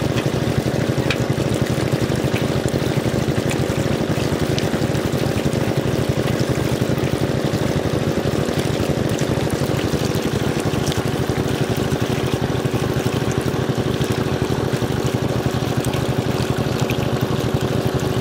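Water gushing and splashing through a net into a bamboo basket of small fish, over the steady hum and fast throb of a water pump's engine.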